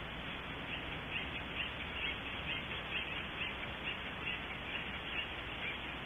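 Acorn woodpecker calling, a series of about a dozen short calls at roughly two a second, over a steady hiss.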